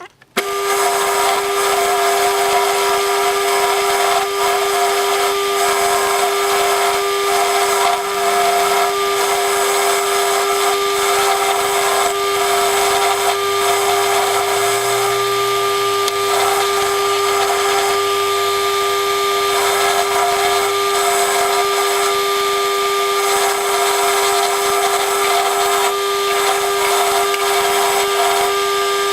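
Motor-driven wire wheel running at a steady speed with a constant hum, its wires scrubbing old paint off a metal breast-drill part that is held against it.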